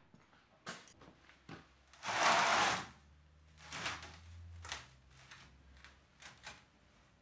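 Light clicks and taps of hand tools and steel sheet being handled on a steel workbench, with a short scraping sound about two seconds in and a softer one just before the fourth second.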